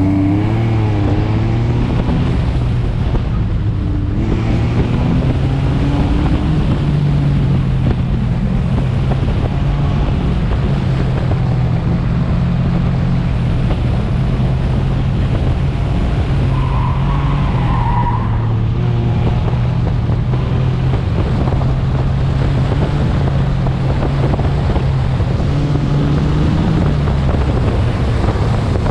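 Car engine pulling hard on an autocross run: it is near the top of a climbing rev as it starts, then holds a strong note that rises and falls as the car accelerates and slows between the cones.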